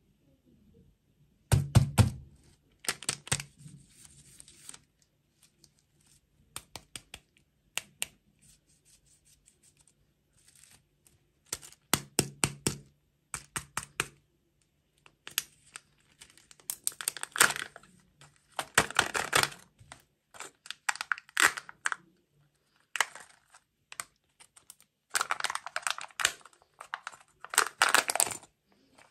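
Kinder Joy egg's foil wrapper crinkling and tearing as it is peeled off by hand, in irregular bursts, with clicks and knocks of the plastic egg capsule being handled and snapped open.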